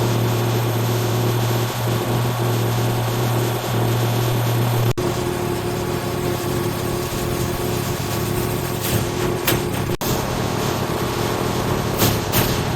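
Steady running noise of biscuit production-line machinery, a constant hum with hiss. Its character changes abruptly twice, about five and ten seconds in, with a few short clicks near the end.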